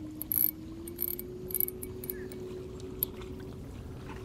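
A spinning reel being cranked, with a few quick clicks right at the start, as a small bluegill is reeled in. Under it is a steady low hum that rises slightly in pitch about a second in.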